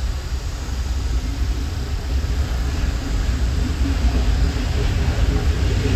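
Steady low rumble of a train running along the track, heard from the rear observation car.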